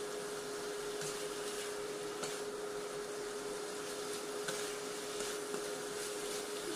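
Spatula scraping and turning French beans and potatoes in a wok, a stroke every second or two, over a steady hum from the electric hob under the wok.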